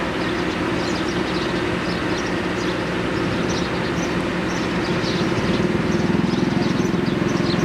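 Excavator engine running steadily, growing a little louder about five and a half seconds in, with faint short high chirps scattered over it.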